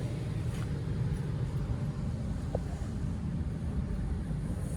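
Steady low rumble of a running gas furnace's blower pushing air through the ductwork, with one brief faint tick about two and a half seconds in.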